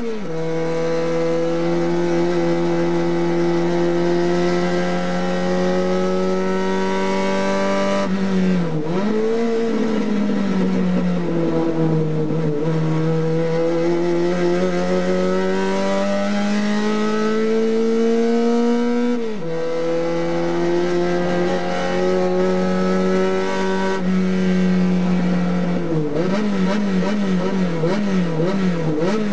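Race car engine heard from inside the cockpit under hard acceleration. Its note climbs slowly through each gear and drops sharply at the gear changes, at the very start and about nineteen seconds in, with a dip and wobble about eight seconds in. Over the last few seconds the pitch wavers rapidly up and down.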